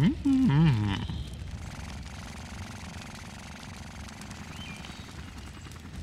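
A cartoon character's short wordless vocal sound, rising and then wavering in pitch for about a second. It is followed by a faint, steady low rumble.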